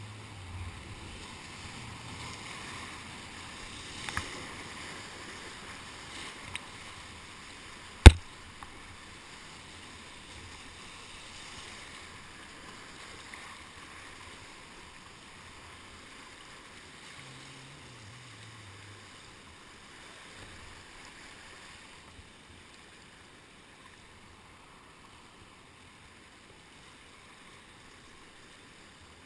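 Whitewater rushing and splashing around a kayak running a rapid, with paddle strokes in the water. A sharp knock about eight seconds in is the loudest sound. The rushing fades gradually toward the end as the water calms.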